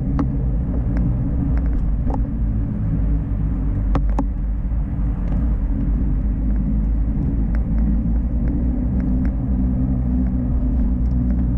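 Steady low rumble of a vehicle on the move, with scattered light clicks and knocks.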